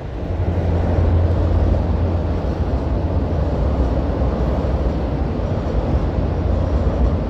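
New Via Rail passenger train going past, a loud, steady low rumble of engine and running gear.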